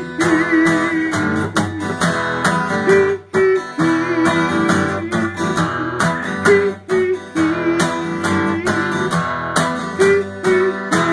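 Acoustic guitar strummed in a steady rhythm, an instrumental break between verses of a song.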